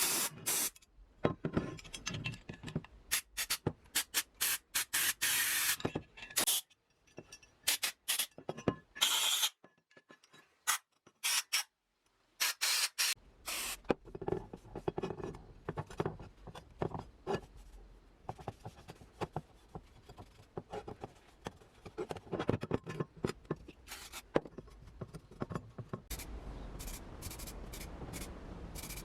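Workshop work on a metal part: short bursts of spraying hiss, and later scraping and rubbing, in separate cut-together clips with a brief near-silent gap in the middle.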